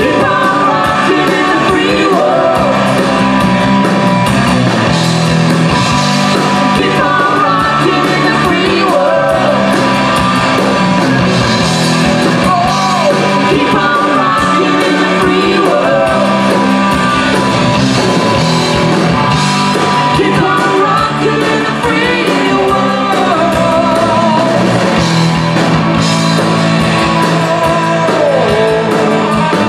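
A live rock band playing: a male singer singing into a microphone over electric guitars and a drum kit, amplified through the stage PA.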